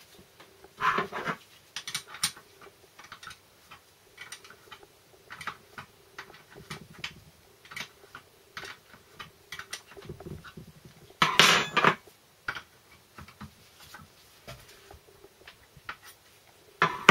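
Steel hand tools and parts clinking and knocking against a gearbox casing while a spanner works on a top-cover fitting: irregular light clicks, with louder metal clanks about a second in, around eleven seconds in, and at the very end.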